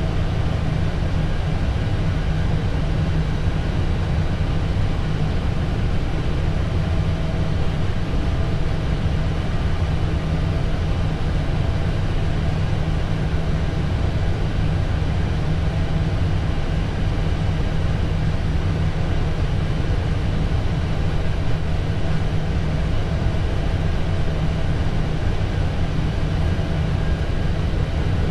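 Steady cabin noise inside an Airbus A320 cockpit waiting on the ground, with its engines idling and heavy rain on the windscreen. A constant low hum that does not change.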